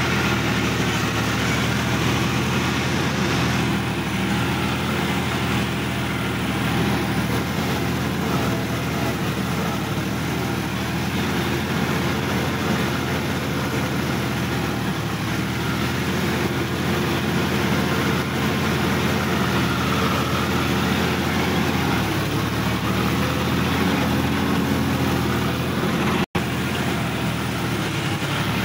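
Sonalika DI-50 RX tractor's diesel engine running steadily as the tractor drives across a grass field, heard from the driver's seat. The sound drops out for a split second near the end.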